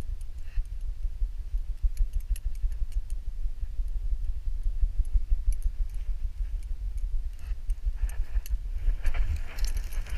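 A dog's metal ID tags clinking lightly against a chest-mounted action camera, over a low rumble of handling noise as the dog moves against the harness. Near the end a rustle of pine needles rises as the dog starts moving off.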